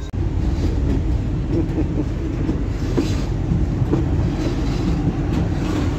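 Narrow-gauge heritage train running, heard from inside a moving carriage: a steady rumble with a few sharp clacks from the wheels on the track.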